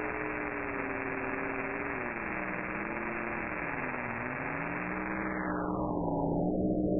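Very-low-frequency radio reception from a VLF receiver played through SDR# software. Static hiss carries a pair of parallel humming tones that waver, sag in pitch through the middle and come back up. This is the unidentified wind-like signal near 11 kHz. The hiss turns duller about five seconds in.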